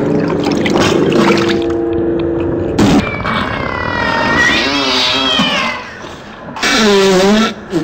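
Eerie, drawn-out wailing tones of the kind posted as unexplained 'strange sounds': low steady held tones, then a high tone that slowly falls, and a loud wavering wail near the end.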